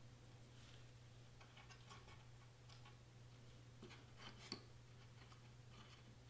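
Near silence over a steady low hum, with scattered faint ticks from a plastic glue bottle being pressed and run along cardstock seams. One slightly louder tick comes about four and a half seconds in.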